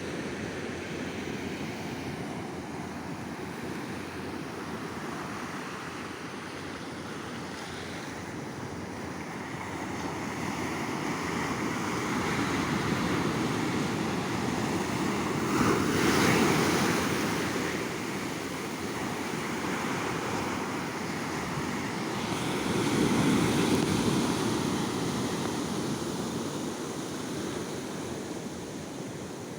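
Ocean waves breaking on a beach and washing up the sand, a steady surf that swells twice, loudest about 16 s and 23 s in, with some wind on the microphone.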